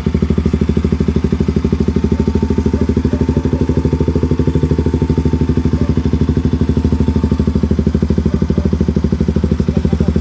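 KTM RC 200's single-cylinder four-stroke engine idling through a Yoshimura R-11 full exhaust system, with a steady, even exhaust pulse and no revving.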